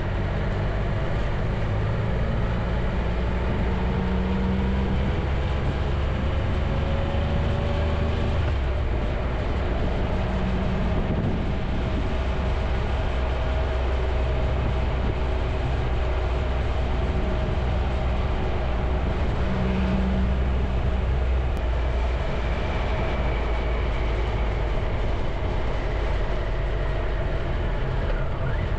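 Motorcycle engine running steadily while riding, heard from on board, with wind and road noise. Its pitch rises and falls gently as the speed changes.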